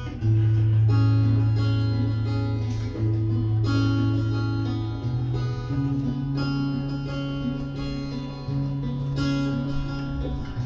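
Acoustic and electric guitars playing an instrumental introduction: held, strummed chords over a strong low note, the chord changing every two or three seconds.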